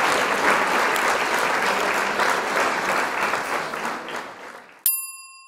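Applause that fades away over about four seconds, then a single bright bell ding near the end that rings on and slowly decays. The ding is the notification-bell sound of a subscribe-button animation.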